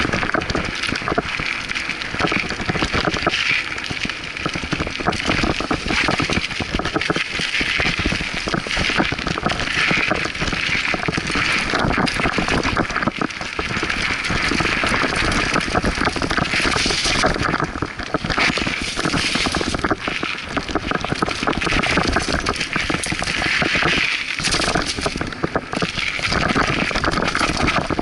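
Scott Aspect 35 hardtail mountain bike ridden fast down a dirt singletrack. The tyres crackle and crunch over dirt, roots and dry leaves, with a constant rattle of the bike over the bumps.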